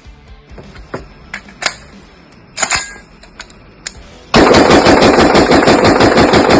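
Short-barrelled AR-15 rifle firing: a few separate shots, then a long burst of rapid fire starting about four seconds in and lasting a little over two seconds before stopping abruptly.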